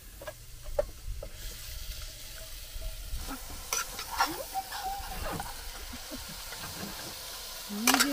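Mutton pieces sizzling in an open pressure cooker on a portable gas stove while a metal spatula stirs them, scraping and clicking against the pot. The sizzle grows louder about a second and a half in.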